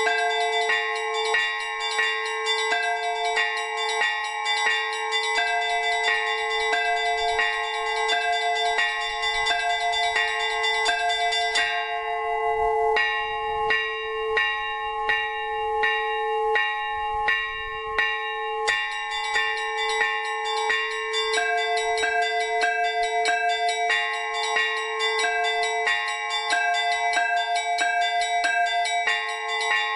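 Orthodox monastery church bells rung as a call to the morning service: small high bells struck in a rapid, even rhythm, several strikes a second, over a steadily sounding lower bell. About twelve seconds in, the small bells thin out for some six seconds, leaving mainly the lower bells ringing, then the full peal resumes.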